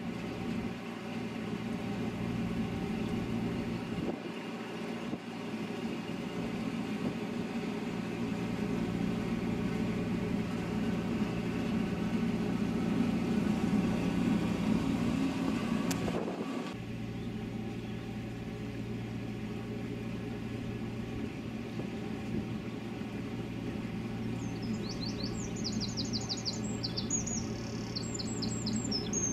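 Narrowboat engine running steadily, with a brief click about halfway through after which the drone carries on. A bird chirps in quick runs near the end.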